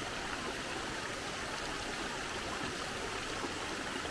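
Steady, even rush of water in a rocky river below a waterfall.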